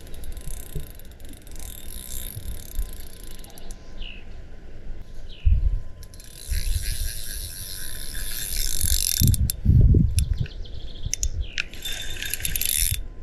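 Large carp spinning reel ratcheting in long stretches while a hooked carp is played, the fish still running against the drag. A few low bumps of handling come through between the stretches.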